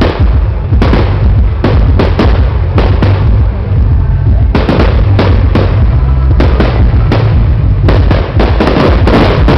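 Fireworks display: many sharp bangs of aerial shells bursting in quick, irregular succession over a constant low rumble, with a short lull near the middle.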